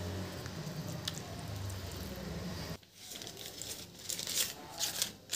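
A spatula stirring thick batter in a glass bowl, then, after a sudden break about three seconds in, paper muffin liners crinkling in short bursts as they are handled in a metal muffin tin.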